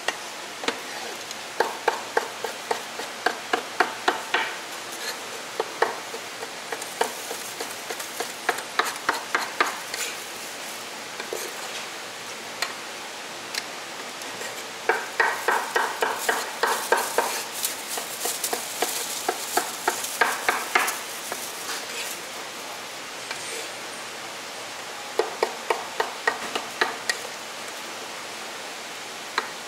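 Cleaver chopping cooked pork offal on a wooden cutting board: runs of quick, sharp knocks, several strokes a second, in bursts with short pauses between.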